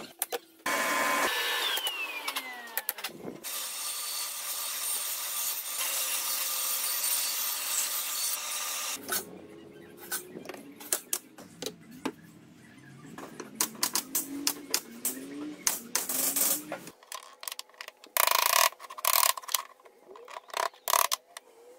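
A handheld electric power tool runs on wood for about eight seconds. It is followed by scattered knocks and rubbing as wooden pieces are handled, and a quick cluster of sharp clicks and bursts near the end.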